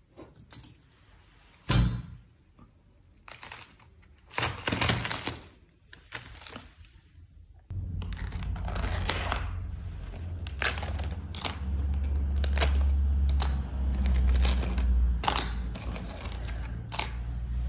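Handling noise as old carpet is pulled back and brittle, flaking layers on wooden floorboards are picked at: scattered scraping, crackling and tearing, with a sharp knock about two seconds in. A steady low rumble runs under the crackles in the second half.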